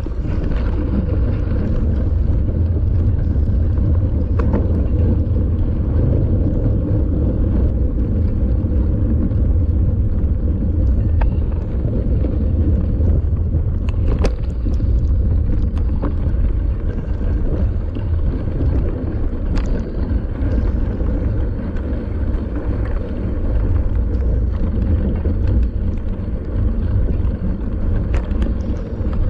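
Steady low wind rumble on the microphone of a camera mounted on a mountain bike being ridden on a beach, with a few sharp clicks or knocks now and then.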